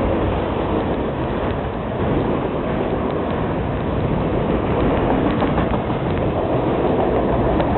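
Freight train of autorack cars rolling past: a steady rumble of steel wheels on the rails, with a few faint clicks.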